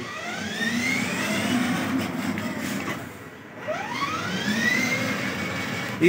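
Electric drive motors and gearboxes of a 12-volt twin-motor kids' ride-on jeep whining as it drives under remote control. The whine rises in pitch twice as the motors ramp up from slow to fast, with a short drop-off about three seconds in.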